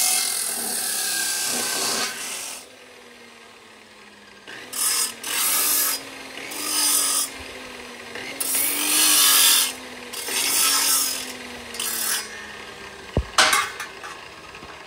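Abrasive chop saw cutting through galvanized steel tubing for the first two and a half seconds, then its motor spinning down with a slowly falling hum. Over the spin-down come several short rasping scrapes of metal on metal, and a couple of sharp metal clanks near the end.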